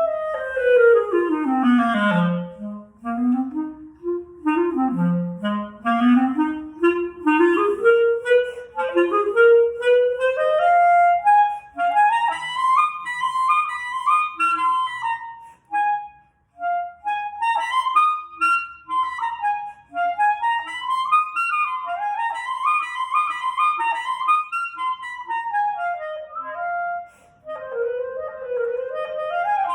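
Clarinet playing a blues tune. It opens with a quick run down to a low note, then climbs back up in phrases into a higher register, with a short break about halfway through.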